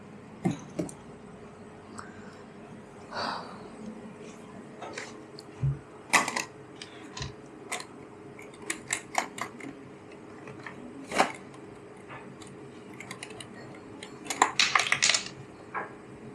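Scattered clicks, clacks and knocks of coffee-bar work, such as cups, saucers and metal tools being handled, with a quick run of rattling clicks near the end. A faint steady hum sits underneath.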